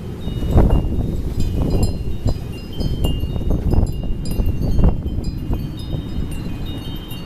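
Wind chimes ringing busily in a gusty windstorm, with many short, high, overlapping tones. Wind buffets the microphone with a low rumble that swells in gusts, strongest about half a second in and again about five seconds in.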